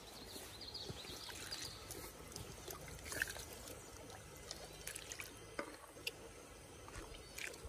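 Faint trickling water, with scattered small clicks and taps over it.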